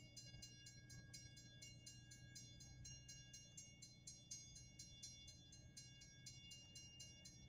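Railroad crossing warning bell ringing in a fast, even rhythm of about four strikes a second, faint over a low steady hum. It is the crossing's signal of an approaching train.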